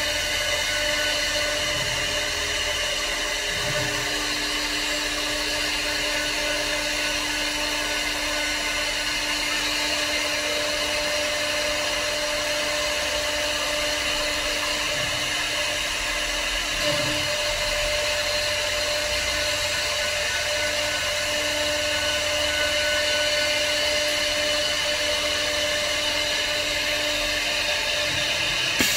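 CNC wood turning lathe running, its high-speed spindle cutting a spinning wooden handrail blank: a steady, high-pitched machine whine over a rasp of cutting, with a lower hum that comes and goes.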